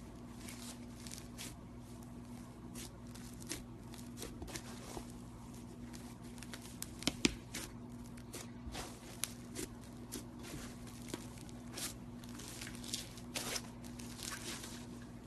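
Slime being squeezed and stretched by hand, giving a run of irregular sticky clicks, crackles and small pops, over a steady low hum.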